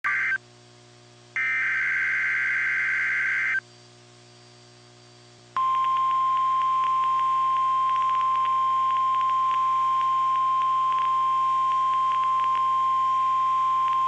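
NOAA Weather Radio emergency alert: short bursts of warbling digital SAME header data, the longest from about one and a half to three and a half seconds in. Then, from about five and a half seconds, the steady single-pitch 1050 Hz weather radio warning tone sounds, marking the start of a child abduction emergency (Amber Alert) broadcast.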